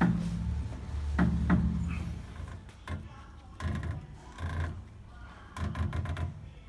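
Irregular knocks and low clunks from an aftermarket (non-original) front strut mount and bump stop on a VW CrossFox: a sharp knock at the start, two more about a second in, then softer thuds. This knocking is the fault that made the front suspension clunk when the wheels were steered; the mechanic blames the non-original part.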